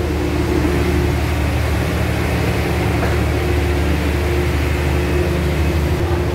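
Running noise inside a moving passenger train coach: a steady low rumble from the wheels and track, with a constant hum over it.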